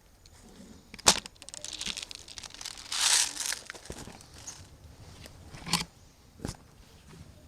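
Rustling and crunching, with a sharp click about a second in and two more near the end.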